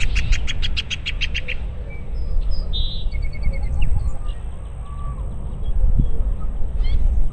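Wild birds singing by a lake: a quick run of about nine repeated high chirps in the first second and a half, then scattered short calls and chirps. A steady low rumble of wind runs underneath.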